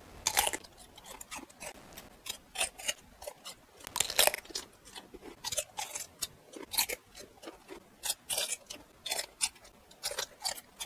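A raw cucumber being bitten and chewed close to the microphone: a run of crisp crunches at irregular intervals, the loudest about four seconds in.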